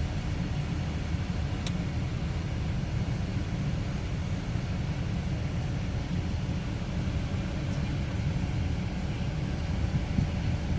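A 2002 Chrysler Sebring idling with its heater blower running, a steady low rumble. There is one faint click about two seconds in.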